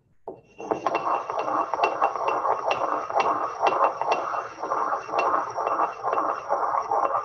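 Pestle worked briskly around a mortar, grinding and scraping gum acacia, oil and water together into a primary emulsion. It starts about half a second in as a continuous gritty scraping that swells and fades with each stroke, with frequent sharp clicks.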